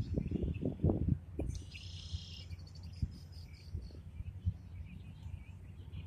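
Birds chirping and calling outdoors, with one trilled call lasting about a second, starting about a second and a half in. Under them runs a low buffeting rumble on the microphone, loudest in the first second.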